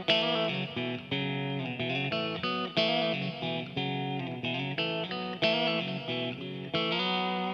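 Hard rock song intro: an electric guitar playing a riff of picked notes and struck chords.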